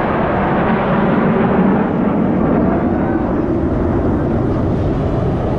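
Jet aircraft engine noise, a loud steady rumble that swells slightly about two seconds in.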